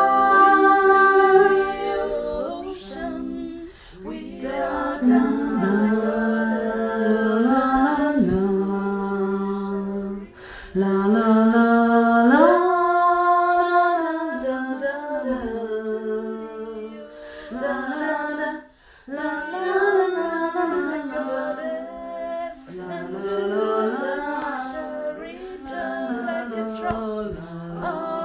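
Unaccompanied a cappella singing in slow, long-held notes, with short breaks between phrases.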